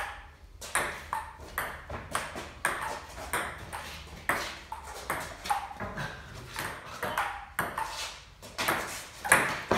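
A table tennis rally: the ball clicking off the bats and the table in an even rhythm of about two hits a second, with the sharpest hit near the end.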